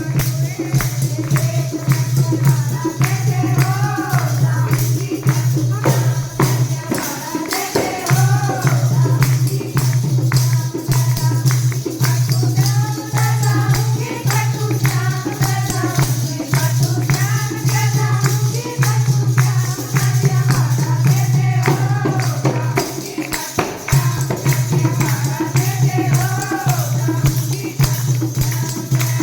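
Music of a Haryanvi devotional bhajan: a wavering melody line over a steady low drone, with fast, continuous percussion strokes. The drone drops out briefly a few times, around 7 and 23 seconds in.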